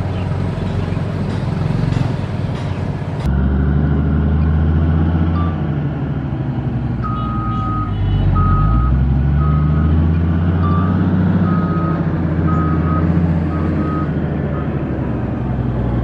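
Diesel engine of a motor grader running under load, its pitch rising and falling, with an abrupt change in the sound about three seconds in. From about seven seconds in, a reversing alarm beeps steadily for about seven seconds.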